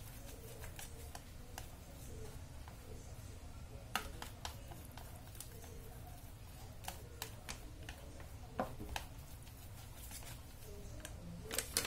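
Wooden spoon stirring thick cake batter in a stainless steel bowl, scraping and knocking against the metal in irregular clicks, with sharper knocks about four seconds in and near the end. A steady low hum underneath.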